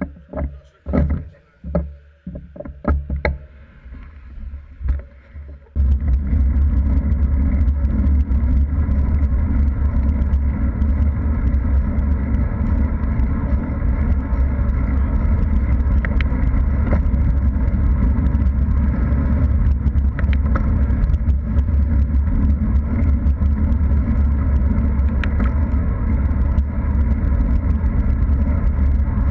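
Loud, steady wind rumble on a handlebar-mounted camera's microphone while cycling along a road, starting abruptly about six seconds in as the ride gets under way. Before that, a few short knocks and clatters from the bikes at a standstill.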